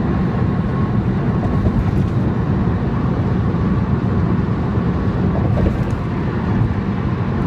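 Steady low rumble of a moving vehicle, with no clear events in it.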